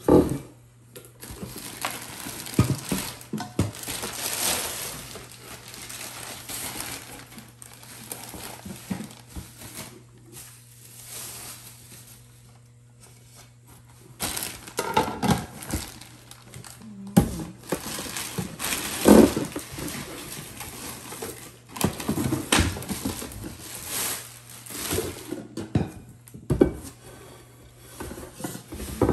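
Plastic wrapping crinkling and rustling as nonstick pots and pans are unpacked from a cardboard box, with a few sharp knocks of cookware being handled.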